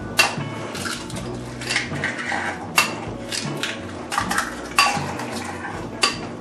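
A spoon clinking and scraping against a small bowl and a plastic mixing bowl as eggs are spooned into the batter bowl: about half a dozen sharp clinks spread through, with a short scrape about two seconds in.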